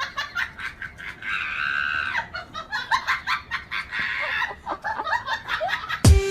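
Short, clucking animal calls with clicky sounds in between. A loud sudden sound cuts in near the end.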